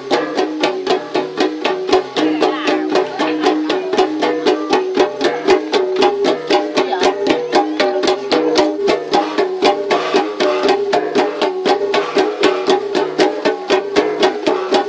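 An ensemble of flat metal gongs, laid face-up on the players' laps and struck with bare hands, playing a steady interlocking rhythm of about four strokes a second. The ringing notes alternate between a few pitches.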